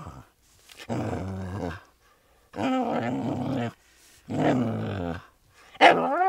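A dog making drawn-out, low vocal sounds, four of them about a second each with short gaps between, the last one sliding up and down in pitch.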